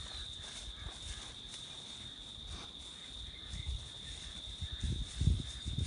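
Insects chirring in one steady high-pitched drone, with a few soft low thumps about five seconds in.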